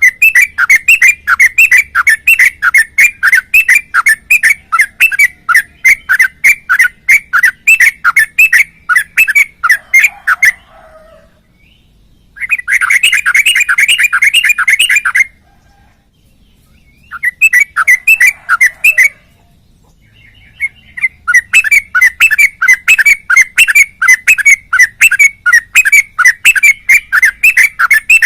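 Trucukan (yellow-vented bulbul) singing in long runs of fast, repeated notes, about three a second. The song breaks off briefly a few times, and in the middle it becomes a denser rapid trill. This is the rapid, continuous 'ngropel' style of song prized in Indonesian bird-keeping.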